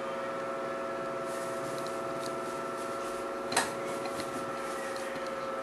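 Steady background hum with several fixed tones, broken by one short click about three and a half seconds in and a few fainter ticks just after.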